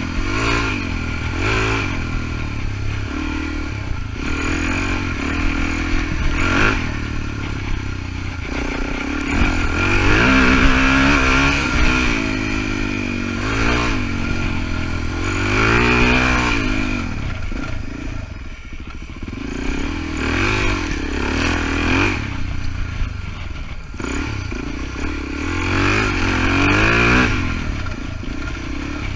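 Suzuki DR-Z400E's single-cylinder four-stroke engine revving up and easing off again and again as the dirt bike is ridden along a rough trail, its pitch rising and falling several times, highest around ten and sixteen seconds in. Occasional knocks and rattles from the bike over the bumpy ground.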